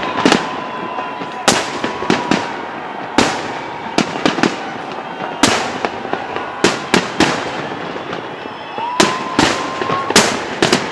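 Aerial fireworks display: a rapid, irregular series of sharp bangs from bursting shells, each trailing off in echo, with a thin whistling tone that rises briefly about nine seconds in.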